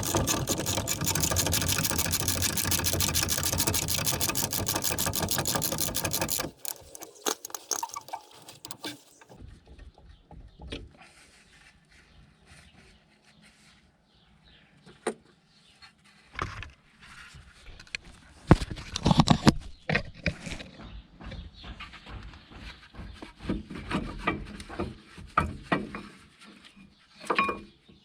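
A power tool runs with a loud, rapid rattle for about six and a half seconds, then stops abruptly. It is followed by scattered clinks and clatters of metal tools and parts being handled.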